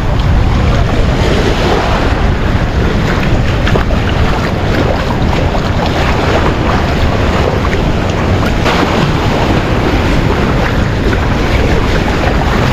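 High-tide seawater surging in and washing through shallow water around the wooden posts of beach shacks, a steady rushing with heavy wind rumble on the microphone.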